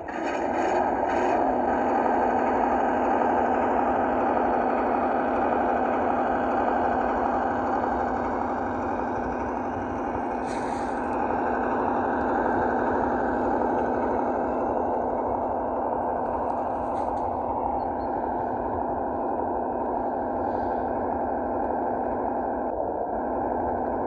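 Engine sound of a 1:12 scale Cross RC ZIL-131 model truck: a steady V8 truck-engine drone from the model's sound module.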